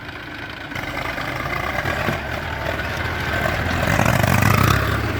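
Diesel engine of heavy farm or earthmoving machinery running with a steady low hum. It grows louder from about a second in, is loudest a little past four seconds, then eases off slightly.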